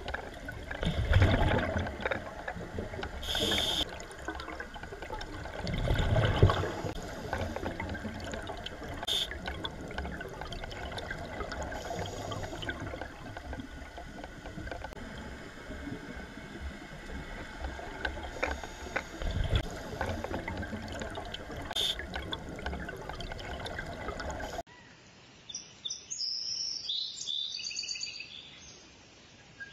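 Underwater sound from a scuba dive: a steady hiss broken three times by loud, low gurgling swells of divers' exhaled bubbles. Near the end it cuts to outdoor ambience with birds chirping.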